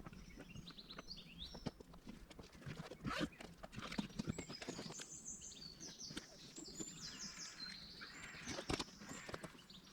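Faint outdoor birdsong: short high chirping notes repeating throughout, with scattered light clicks and knocks.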